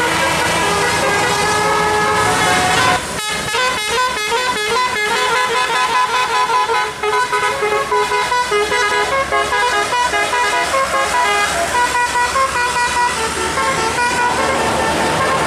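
Bus telolet musical air horn (Basuri type, roof-mounted trumpets) sounding: a held chord of several notes for about three seconds, then a fast tune of short notes that jump in pitch.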